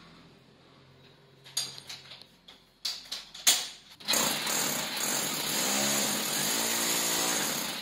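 A few knocks and handling clatter, then about four seconds in a corded hammer drill starts boring into the plastered wall and runs steadily, stopping near the end.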